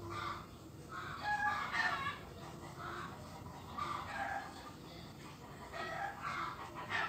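Chickens clucking, with a rooster crowing: a string of short, pitched calls every second or so, loudest about two seconds in.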